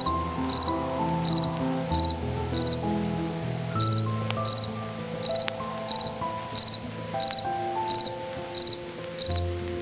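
Cricket chirping: short pulsed chirps repeating about every two-thirds of a second, with a brief gap near the middle, over soft background music of sustained changing notes.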